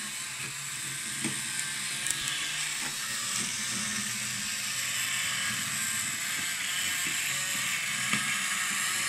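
Tiny electric drive motor and gearing of a model bus whirring steadily as it drives along the track, with a few light clicks.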